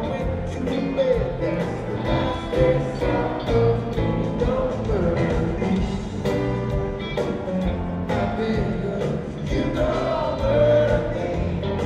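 Live rock band playing a country-rock song, with electric guitars, bass, keyboards and drums, and singing over it.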